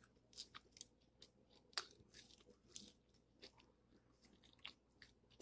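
A person biting and chewing fried chicken: faint, irregular crunches and clicks from the breaded crust, with two sharper crunches near the two- and three-second marks.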